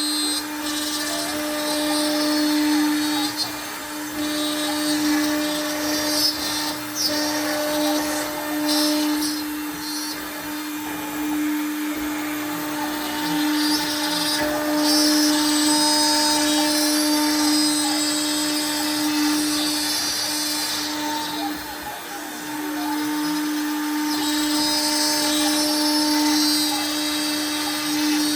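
Router running with a steady high whine while its bit mills black walnut, the cutting noise swelling and easing as the bit works through the wood.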